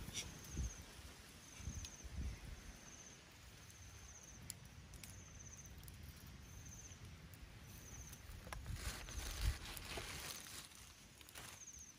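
Quiet outdoor ambience with an insect repeating a short high trill about once a second, over soft knocks and rustles as snails and crabs are set onto a wire grill over a small fire.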